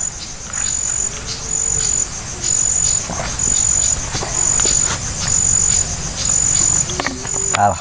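An insect calling, a high-pitched trill in pulses of about half a second that repeat roughly once a second, over a low steady rumble.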